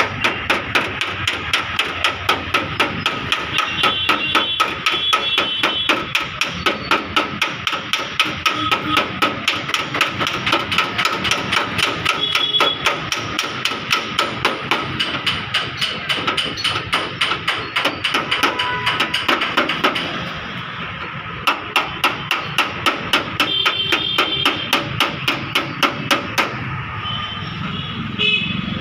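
Light hammer taps on a car's sheet-metal fender, repeated quickly and evenly at about three a second, as a dent is worked out by dry denting. The tapping stops briefly about two-thirds of the way through, then resumes.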